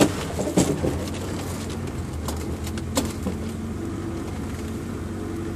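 Off-road vehicle engine idling with a steady low drone, with a few sharp knocks: one at the start, one about half a second in and one about three seconds in.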